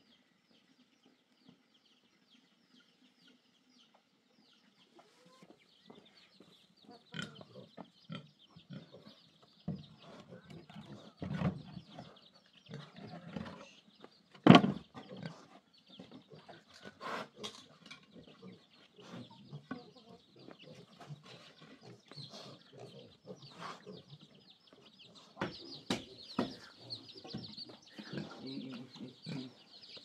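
Chickens clucking among scattered knocks and bumps, the loudest a sharp knock about halfway through, over a steady high-pitched background hiss. The first few seconds are nearly silent.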